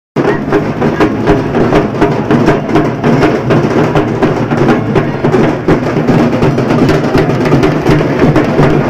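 Loud drum-driven music with rapid, steady percussion strokes over a heavy low end.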